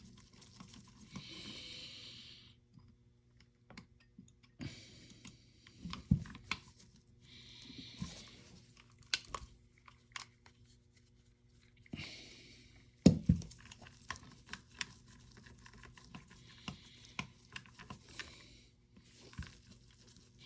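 Pistol-grip screws of an airsoft rifle's gearbox being backed out with a hand driver: short scratchy grinding spells about a second long, repeated half a dozen times, between light clicks and taps of small metal parts.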